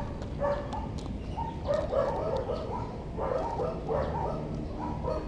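Short animal calls repeated several times a second in uneven runs, over a steady low background rumble.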